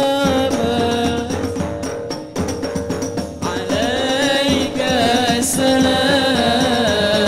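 Marawis ensemble playing: a male voice sings long, ornamented, wavering lines through a microphone over frame drums and large hajir bass drums. The voice drops out for a moment about two seconds in while the drums keep going, then comes back.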